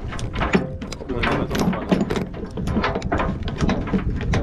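Heavy steel lashing chain clinking and rattling as it is pulled and laid out link by link on a wooden trailer deck, many short irregular metallic clanks, while it is being tensioned to tie down a load.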